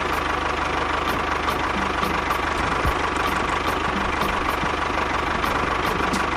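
Tractor engine idling steadily with a fast, even chugging rhythm.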